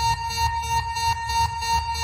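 Electronic emergency alert alarm: a steady high tone held over a low pulsing beat of about three pulses a second.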